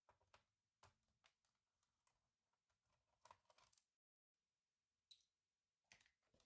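Near silence with a few faint, scattered clicks and taps, and a brief dead-silent gap about four seconds in.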